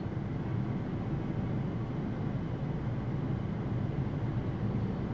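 Steady road noise of a vehicle driving along a highway, heard from inside: a low rumble of engine and tyres with a hiss of wind.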